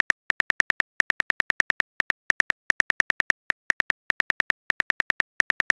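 Phone keyboard typing clicks: a quick run of short, identical taps, several a second, in bursts with brief gaps between.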